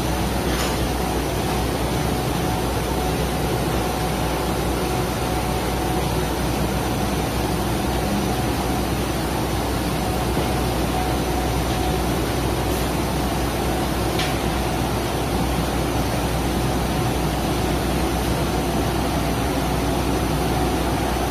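Automatic car wash machinery running: the motors of its rotating red cloth brushes hum steadily while the brushes scrub over a van.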